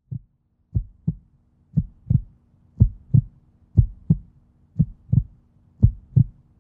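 Heartbeat sound effect: slow, deep lub-dub double thumps, about one beat a second, over a faint steady hum.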